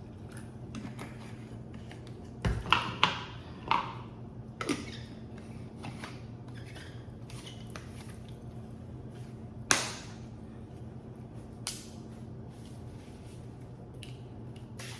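A few sharp clicks and knocks of containers and lids being handled while a drink is being mixed, a cluster of them a few seconds in and two more later, over a steady low hum.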